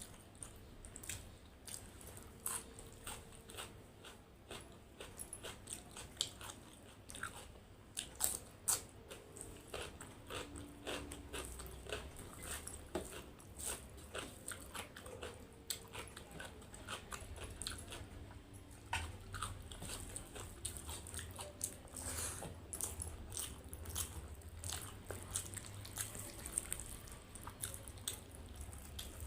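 Close-miked eating: irregular biting and chewing with frequent crunches and wet mouth clicks as chicken, rice and salad are eaten.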